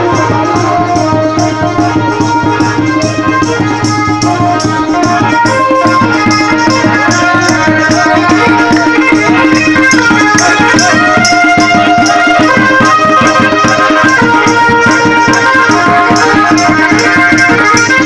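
Traditional Indian festive music: fast, dense rattling percussion with melodic lines over a steady drone, getting a little louder about halfway through.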